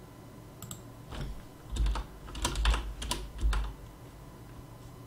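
Computer keyboard typing: a short run of keystrokes through the first three and a half seconds, then it stops.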